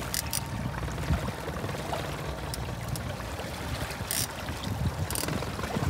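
Hooked brown trout thrashing at the water's surface beside the boat: short splashes near the start, about four seconds in and again about a second later, over steady lapping water and a low rumble.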